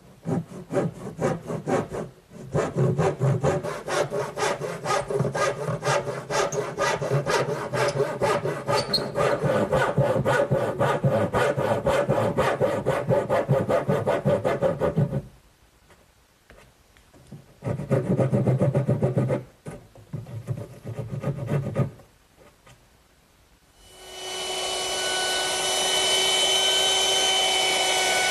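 Back saw cutting by hand through a pine board in fast, even strokes for about fifteen seconds, then another short run of strokes after a pause. Near the end a handheld router starts up and runs steadily with a high whine.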